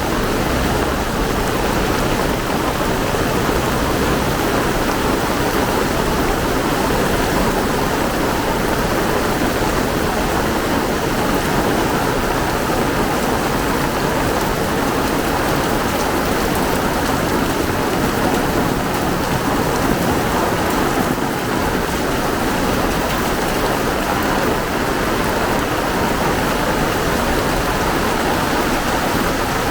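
Heavy rain pouring down, an even and steady rush of falling water.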